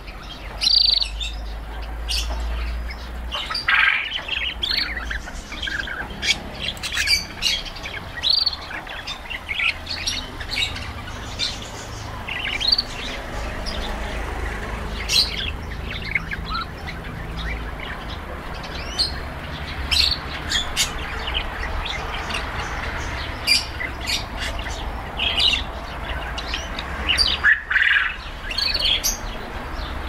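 Small caged songbirds chirping and twittering, with many short, high calls coming thick and fast over a low steady hum.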